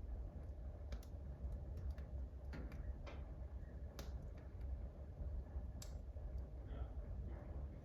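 Wood fire in a wood-burning stove, crackling with a handful of sharp, irregular pops over a low steady rumble.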